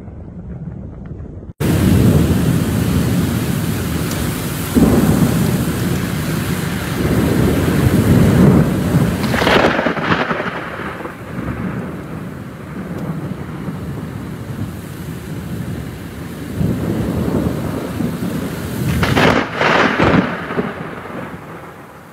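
Thunderstorm: wind and heavy rain with thunder rumbling. The storm noise starts suddenly after a quieter first second and a half of wind, and the thunder swells about ten seconds in and again near the end.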